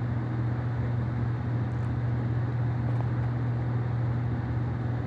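Steady low electrical hum from running equipment in the room, holding one pitch without change over a faint even background noise.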